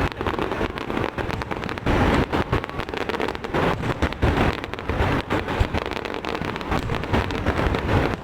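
Fireworks going off in quick succession: a dense run of bangs and crackles over a low rumble, with wind on the microphone.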